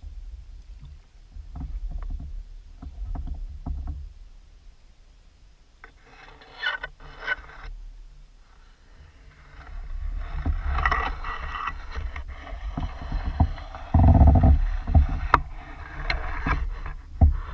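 Water splashing and sloshing around a plastic fishing kayak, with scattered clicks and knocks on the hull over a low rumble. A heavy thump comes about two-thirds of the way through, and another near the end.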